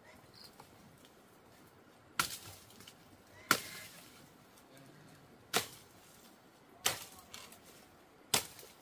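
Five sharp, hard blows, one to two seconds apart, each dying away quickly.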